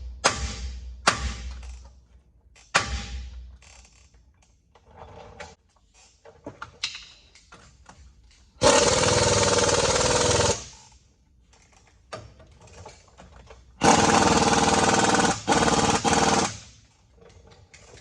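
A few ringing hammer blows on steel, then a pneumatic impact wrench runs in two bursts, one of about two seconds and a longer one of about three seconds.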